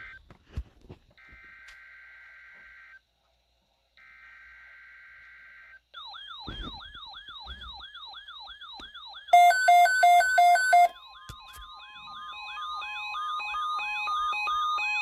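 Emergency alert tones: two roughly two-second bursts of warbling SAME header data tones, then from about six seconds in a rapidly repeating siren-like sweep. About nine seconds in, loud pulsing beeps join for a second and a half, followed by a steady tone with more beeping over the sweep, growing louder toward the end.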